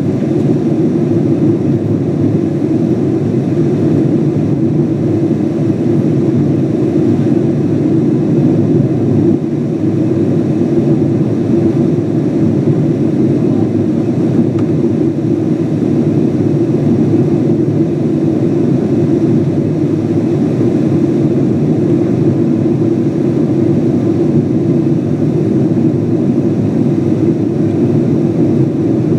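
Steady cabin noise of a Boeing 777-200 climbing after takeoff, its Pratt & Whitney engines and the rushing airflow heard from an economy window seat: an even, low rumble that does not change.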